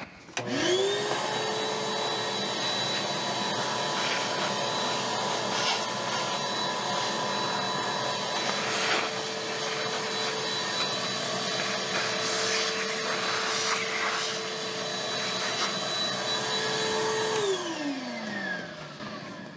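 Shop vacuum switched on: its motor spins up to a steady whine with a strong rush of air as the hose draws metal chips off the milling-machine vise, with a few short rattles as chips go up the hose. It is switched off about 17 seconds in and its pitch falls as it winds down.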